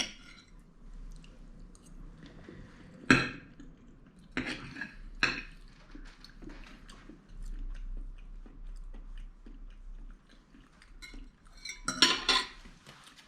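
Cutlery clinking against a plate or dish a few times, the sharpest clink about three seconds in, with quiet chewing between and a louder clatter near the end.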